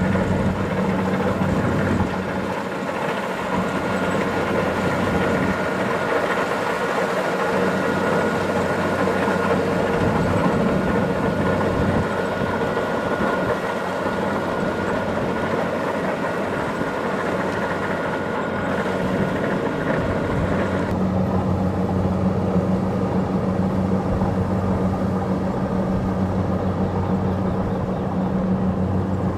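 Kubota DC70 Plus rice combine harvester running steadily, its diesel engine droning under the clatter of the harvesting machinery. About two-thirds of the way through a thin high whine stops and the low drone grows stronger.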